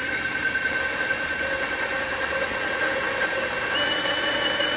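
Cordless drill spinning a large hole saw through a plastic car bumper cover, cutting a hole: a steady motor whine over the grinding of the saw teeth in the plastic, with a higher-pitched tone joining about three and a half seconds in.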